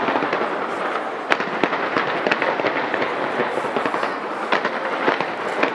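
Fireworks display going off in a dense, unbroken barrage of crackling and sharp pops.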